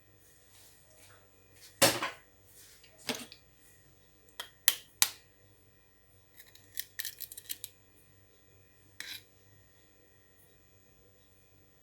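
Kitchen utensils and dishes being handled: a scattering of sharp clicks and clinks, the loudest about two seconds in, with a quick run of them a little after halfway.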